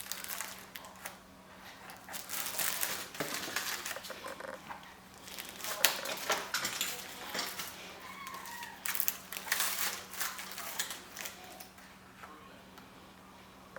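Rustling and crinkling handling sounds with scattered light clicks and taps as a mesh dome wig cap is fitted onto a mannequin head, over a faint steady hum.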